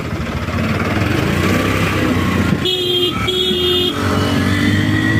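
Scooter engine and road noise while riding, with a vehicle horn honking twice, briefly, a little after halfway in, followed by a lower held tone lasting about a second and a half.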